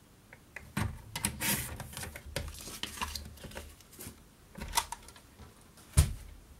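Paper trimmer's sliding blade drawn along its rail through cardstock: a scraping rasp with clicks for a couple of seconds, starting about a second in, then paper pieces handled on the trimmer. A sharp thump about six seconds in is the loudest sound.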